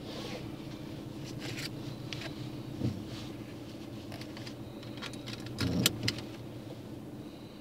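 Car moving slowly, heard from inside the cabin: a steady low engine and road hum with light rattling clicks. Two low thumps, the louder one about six seconds in.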